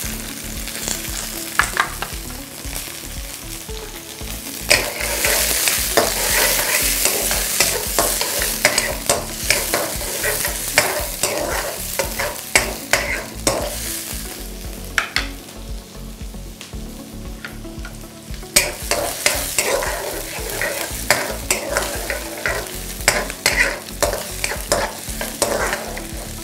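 Onions and green beans sizzling in hot oil in a wok, stirred with a spatula that scrapes and taps against the pan. The sizzle dies down for a few seconds about two-thirds of the way through, then picks up again with more scraping.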